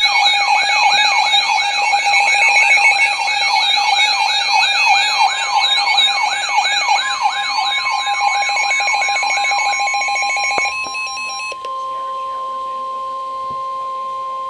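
Electronic alert siren wailing up and down about two and a half times a second over steady alarm tones. A single steady tone, the NOAA Weather Radio 1050 Hz warning alarm, joins it and holds on alone after the siren stops about ten seconds in, then cuts off sharply.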